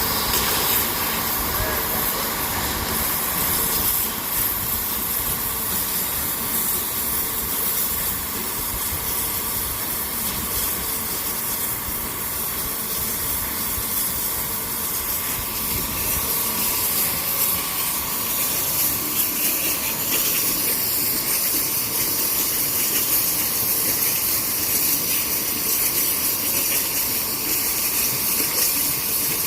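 CNC machine cutting granite: a steady hissing grind of the cutting tool in the stone, with a faint whine from the machine running underneath.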